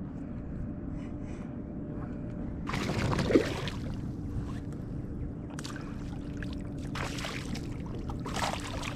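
Water splashing and sloshing in several short bursts over a steady low rumble.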